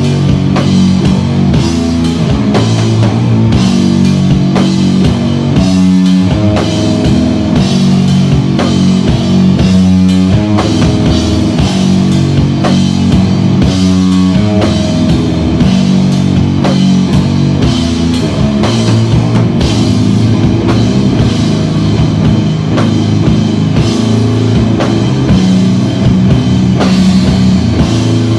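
Live rock band playing: a drum kit keeps a steady beat under guitar holding low, sustained notes that change pitch in a figure recurring about every four seconds.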